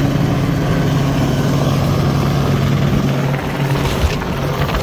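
Helicopter flying low overhead: a steady rotor and engine drone over rushing wind from its downwash, which blasts dust across the ground. The drone drops away about three and a half seconds in.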